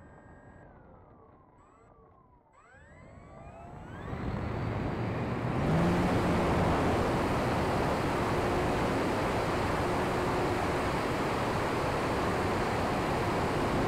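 Brushless electric motor and propeller of a 3D-printed RC aerobatic plane, heard from a camera mounted on the plane: a low whine gliding up and down in pitch, then throttled up about three to four seconds in to a loud, steady rush as the plane takes off and climbs.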